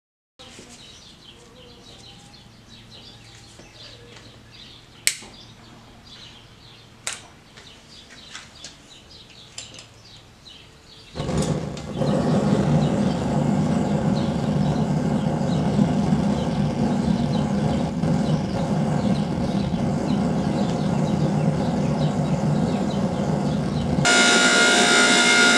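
A forge burning with a steady rushing flame noise, switching on suddenly about eleven seconds in after a stretch of quiet shop ambience with two sharp clicks. Near the end it changes to a steady sound with several held tones.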